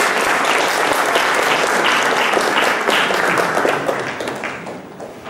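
Audience applauding: a dense run of hand-clapping that thins out and fades over the last second or so.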